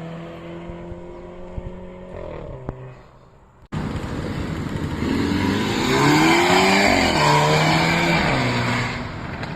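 Mercedes-Benz GLA250's turbocharged four-cylinder engine and exhaust. At first the note eases down and fades. Then, after a sudden jump, it revs up and down in several quick swings, loudest in the middle, and settles to a steadier drone near the end; this is the exhaust's 'fart' sound.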